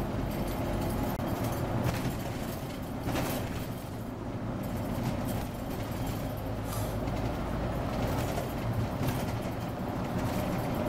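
Scania OmniCity double-decker bus running, heard from inside: a steady engine drone with road and body noise.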